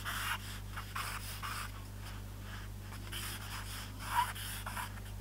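Willow charcoal stick scratching across paper in a series of short, quick strokes as lines are sketched, over a low steady hum.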